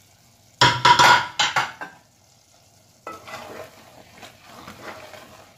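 A loud metallic clatter with a brief ring about half a second in, then, from about three seconds in, a wooden spatula stirring and scraping thick, soft-cooked vegetable curry in an aluminium pressure cooker.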